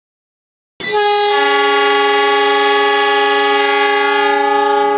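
Train air horn sounding one long, steady blast that starts sharply about a second in and is held for about four seconds.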